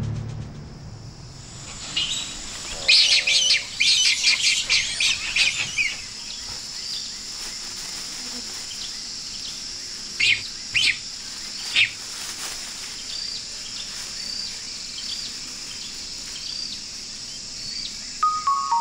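Tropical forest ambience: birds calling over a steady high drone, with a rapid burst of chirping calls a few seconds in and three sharp calls about halfway through. A music track fades out at the start, and a descending mallet melody comes in near the end.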